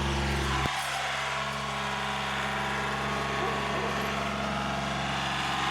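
Tractor engine running steadily with an even hum; its deepest rumble drops away suddenly under a second in.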